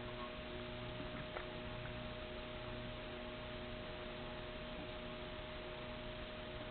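Ceiling fan motor running on low speed with a steady electrical hum made of several held tones, and a few faint ticks.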